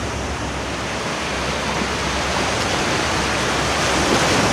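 Shallow sea surf washing up over flat wet sand at the waterline: a steady rushing hiss of foaming water that grows a little louder toward the end.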